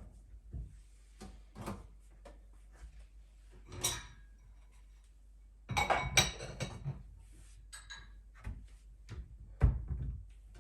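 Kitchen handling sounds: dishes and utensils set down and clinking in separate knocks, with a dense run of clatter about six seconds in and one sharp knock near the end.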